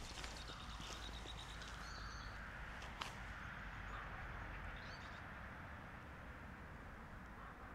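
Birds chirping now and then over a quiet, steady outdoor background. A single sharp click comes about three seconds in.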